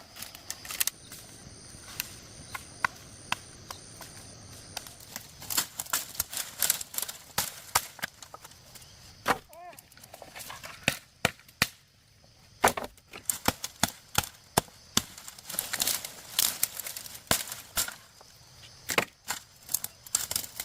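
Chopping on wood or bamboo with a blade: many sharp, irregular strikes, some in quick runs.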